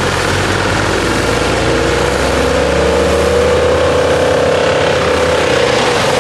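Rayco RC12 12-inch wood chipper running at full power, its engine and cutter drum making a loud, steady sound. A tone in it rises gently over the first few seconds and then falls back near the end.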